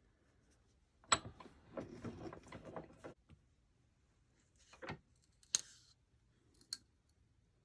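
Light clicks and knocks of small parts and tools being handled: a cluster of them about a second in, then a few separate sharp clicks with quiet between.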